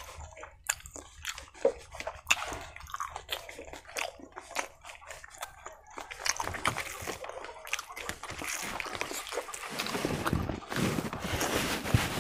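Close-up eating sounds: wet chewing and lip smacks of pork curry and rice eaten by hand, many short clicks. From about halfway it turns into a denser squishing as fingers mix the curry into the rice on a banana leaf.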